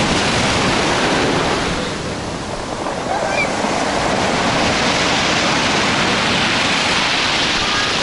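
Sea surf breaking and foaming white water rushing up the shore. A loud wash at first eases for a moment about two seconds in, then another breaking wave builds it up again.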